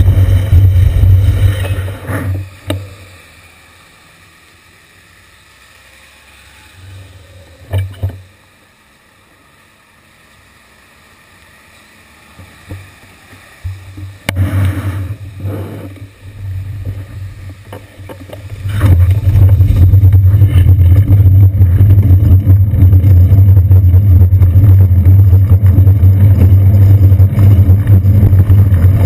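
Heavy low rumble of wind buffeting and road vibration on a seat-post-mounted GoPro Hero 2 camera in its housing while the bicycle rides. It drops away to faint muffled street sound for about ten seconds while the bike stands still, with a single knock near the middle, then comes back in uneven bursts and runs loud again for the last ten seconds.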